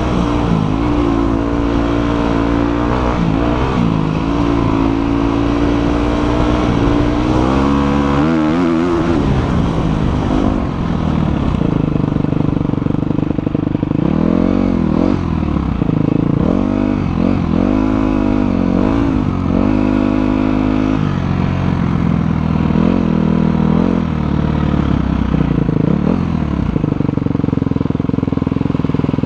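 Motocross bike engine running, revved up and down again and again so that its pitch keeps rising and falling over a steady low rumble.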